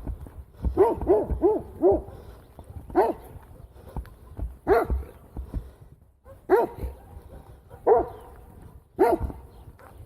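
A dog barking: a quick run of four barks about a second in, then single barks every one to two seconds.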